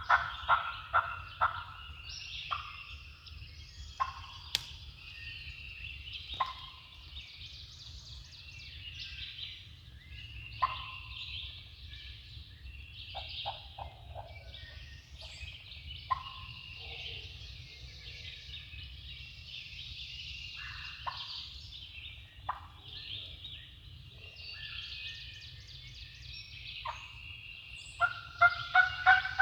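Turkey calling over a morning songbird chorus. A quick run of evenly spaced yelping notes comes at the start and again near the end, with single calls scattered between.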